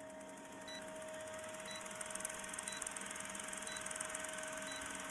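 Old-film countdown leader sound effect: a film projector's steady rattle, hiss and hum, with a short high beep once a second as the numbers count down.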